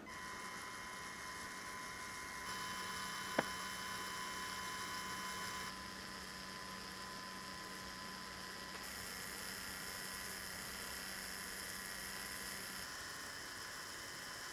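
Click of a LEGO Power Functions battery box switch, then a Power Functions electric motor running steadily, driving a LEGO Technic gear train with a thin, even whine. A single sharp tick about three and a half seconds in.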